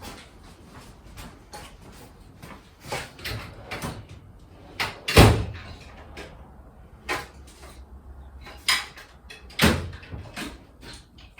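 Clatter of someone rummaging through a tool drawer for a screwdriver: scattered knocks and clicks of handled tools, with two louder bangs, about five and ten seconds in.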